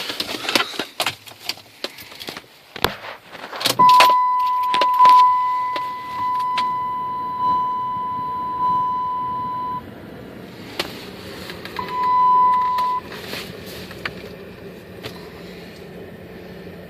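Keys rattling and clicks of the ignition, then a steady electronic warning chime for about six seconds. The 2001 PT Cruiser's four-cylinder engine then catches on a cold start at minus two degrees and settles into a steady idle, with a second short chime about two seconds later.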